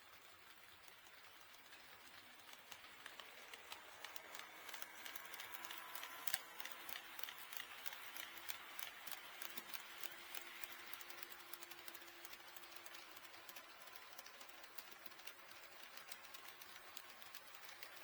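HO scale model train running on KATO Unitrack, its wheels clicking rapidly over the rail joints. The clicking grows louder from about two seconds in, with one sharper click about six seconds in.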